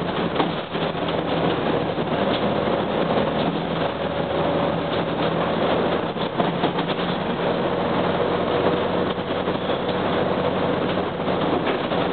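Cabin noise inside a 1998 UD Nissan Diesel KC-UA460LSN city bus under way: its diesel engine running and road noise, steady throughout.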